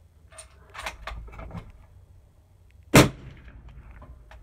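A single suppressed rifle shot from a 22-250 bolt-action rifle fitted with a Thunder Beast Ultra 5 suppressor, about three seconds in, with a sharp crack and a short tail. A few light clicks come before it.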